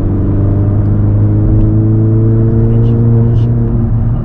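A 2017 Mazda 3 GT's 2.5 L four-cylinder engine, fitted with a Borla S-Type exhaust, pulling under acceleration. Its note climbs steadily in pitch for about three seconds, then eases off near the end.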